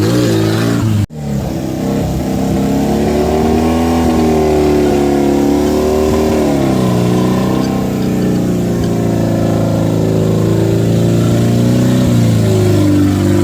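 Off-road buggy engine revving, its pitch rising and falling repeatedly, with a sudden break in the sound about a second in.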